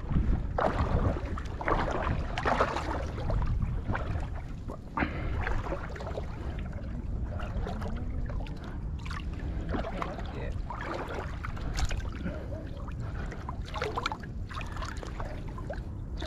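Water splashing and dripping as a nylon cast net is hauled up and handled in shallow water, with irregular sloshes that are busiest in the first few seconds and then settle to quieter trickling.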